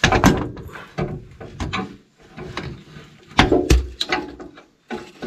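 Steel linkage parts clanking and knocking irregularly as a stay is fitted by hand, with the loudest knocks about three and a half seconds in.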